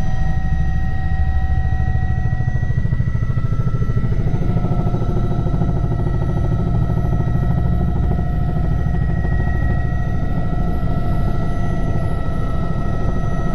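Helicopter in flight heard from inside the cabin: a steady low, rapidly pulsing rotor rumble with a constant whine at a few fixed pitches above it.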